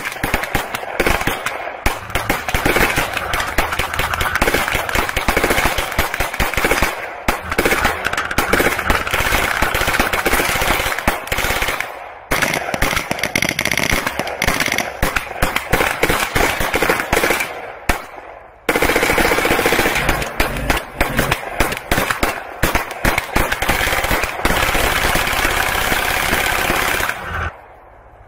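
Sustained rapid gunfire aimed at a steel armoured shield, shots coming in dense overlapping strings. It breaks off briefly twice and stops shortly before the end.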